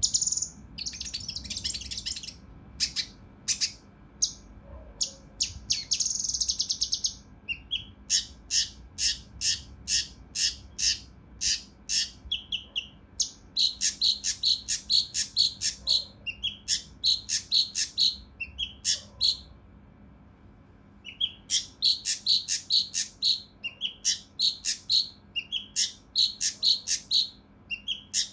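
A kinoi (cucak rante mas) calling in rapid runs of short, clipped, high notes. Two longer harsh, buzzy phrases come in the first few seconds, and there is a brief pause about two-thirds of the way through before the fast notes resume.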